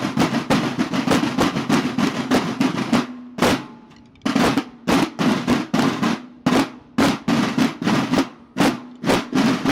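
Marching snare and bass drums of a Mexican banda de guerra: fast, dense drumming that breaks off about three seconds in, then a single stroke, and from about four seconds on a steady beat of about two strokes a second.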